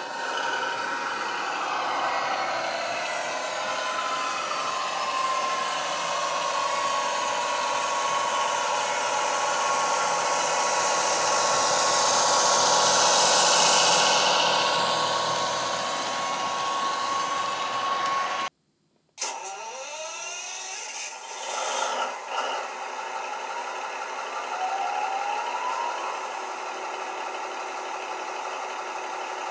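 Simulated diesel engine sound from the onboard sound decoder of an ESU model BR 216 diesel locomotive, running steadily with a high whine, growing loudest about halfway as the train passes close by. It breaks off for a moment about two-thirds of the way in, then resumes more quietly.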